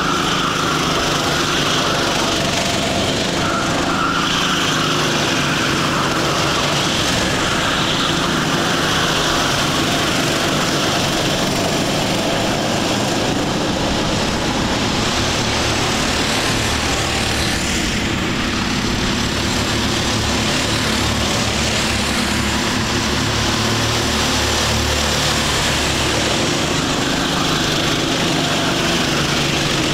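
Engines of a pack of Sodi rental karts racing past, a steady blend of several engine notes rising and falling with the throttle.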